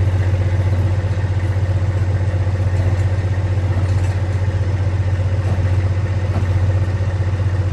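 Semi truck's diesel engine running steadily, a constant low hum.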